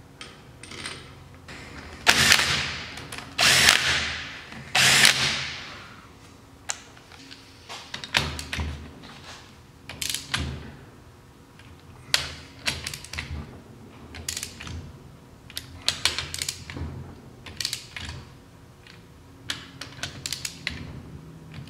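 Hand ratchet working the cylinder head bolts of an ATV engine: three louder rasping bursts between about two and six seconds in, then scattered ratchet clicks and light metal taps.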